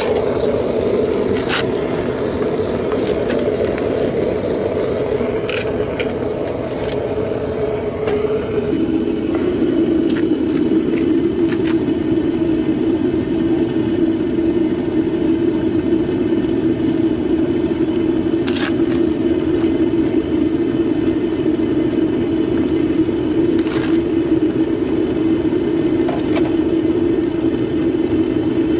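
Homemade propane burner firing into a DIY foundry furnace, running with a loud, steady roar while aluminum melts; about eight or nine seconds in its tone settles slightly lower and steadier. A few faint clicks sound now and then.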